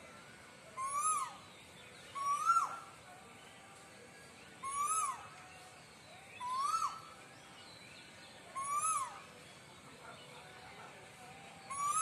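A cuckoo calling about every two seconds, five times plus once more at the very end. Each call is a single short note that rises and then drops sharply.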